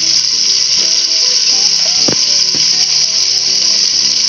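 Steady, loud hiss of oil and water sizzling in a metal pot as turmeric is stirred in, with two short taps of the steel spatula about two seconds in.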